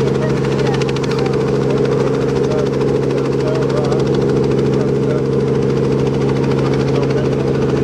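North American T-6 Texan's nine-cylinder Pratt & Whitney R-1340 radial engine idling steadily on the ground, close up.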